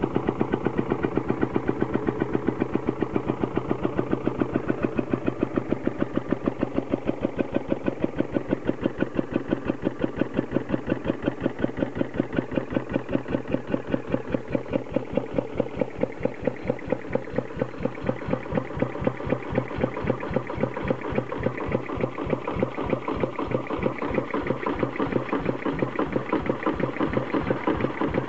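Vintage single-cylinder stationary engine running steadily, with an even, rapid beat of firing strokes.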